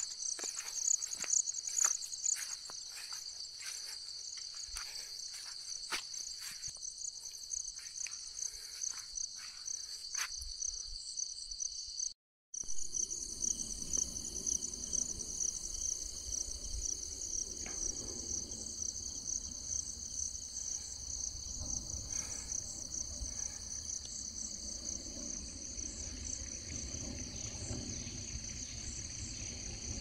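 A steady, high-pitched insect chorus, with sharp clicks over it during the first ten seconds. The sound cuts out completely for a moment about twelve seconds in, then the chorus goes on over a low rumble.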